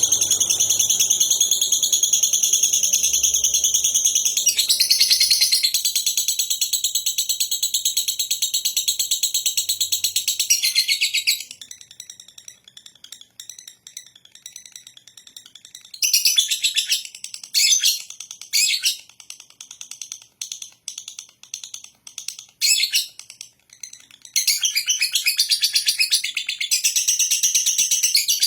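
Lovebird singing its ngekek, a rapid, high chattering trill. It runs unbroken for about eleven seconds, drops to short broken bursts with gaps, then runs unbroken again near the end.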